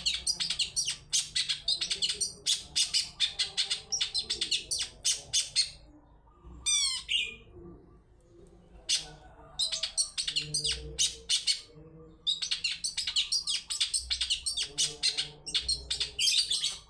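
Long-tailed shrike singing: fast runs of sharp, high, repeated notes in several bursts, broken by pauses, with a short quick phrase of gliding notes in the middle.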